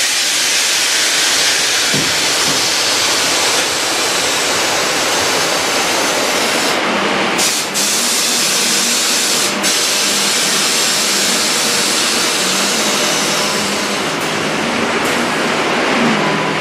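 Heavy rain falling on the workshop roof: a steady, loud hiss.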